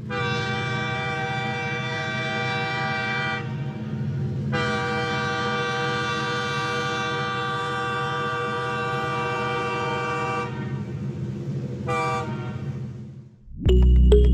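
Train horn sounding: a long blast of about three seconds, a longer one of about six seconds, then a short toot, over the steady low rumble of a running train. Music comes in just before the end.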